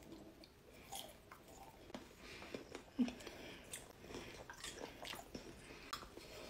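Faint chewing of a mouthful of hamburger: soft wet mouth sounds and small smacks and clicks, with one sharper click about three seconds in.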